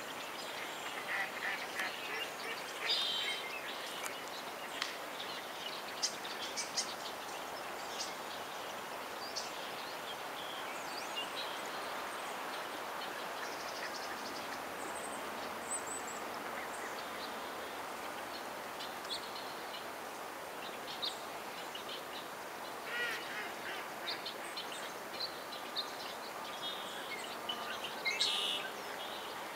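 Flock of ducks calling on the water, with scattered short calls and quacks over a steady background hiss.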